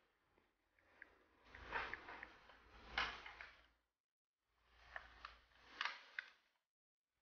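Close rustling and scuffling, with a few sharp clicks, in two bursts of a couple of seconds each: small dogs playing and nosing against fabric right by the microphone.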